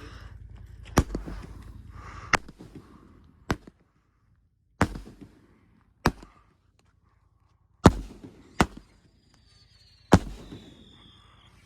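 A 500-gram 'The Cap' firework cake firing its shots one by one: eight sharp bangs at uneven gaps of about one to two seconds, each trailing off briefly. A faint high falling tone follows the last bang near the end.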